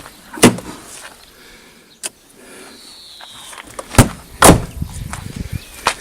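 A few sharp knocks and clunks, the loudest about half a second in and around four and a half seconds in, with a faint high whistle-like glide around the middle.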